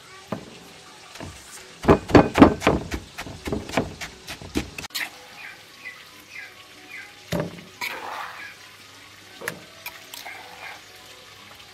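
Wooden pestle pounding chilies and seasonings in a wooden mortar: a run of quick, even knocks, about five a second, for roughly three seconds. A few single knocks and a short scrape follow later.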